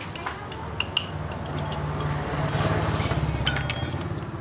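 Light metallic clicks and clinks from hands working on the opened cylinder head of a disassembled Yamaha Mio J scooter engine, with one sharper clink about halfway through. Under them is a low engine rumble from passing traffic that swells and then fades.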